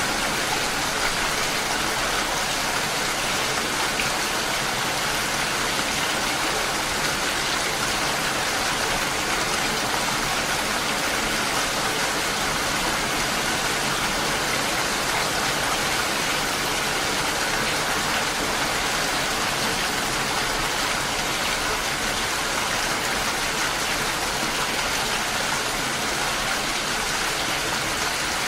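Steady heavy rain falling, an even hiss of drops on surfaces with no breaks.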